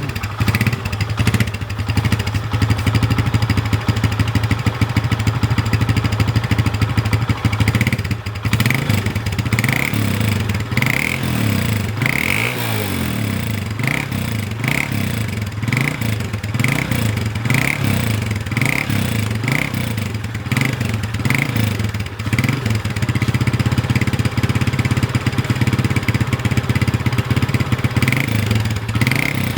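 Suzuki Fiero motorcycle's single-cylinder four-stroke engine on its stock exhaust, idling steadily, then revved in repeated short throttle blips about once a second from about eight seconds in, easing back toward a steadier run near the end.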